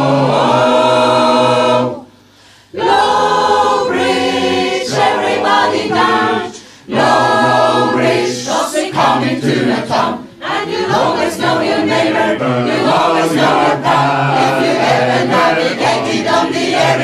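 Mixed choir of men's and women's voices singing in harmony without accompaniment: a held chord, a brief break about two seconds in, then further sung phrases.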